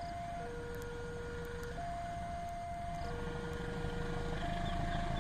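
Level-crossing warning alarm sounding two alternating tones, a lower and a higher one, switching about every 1.3 seconds. Under it, the low rumble of a CC 203 diesel-electric locomotive hauling a ballast train grows louder toward the end as it approaches.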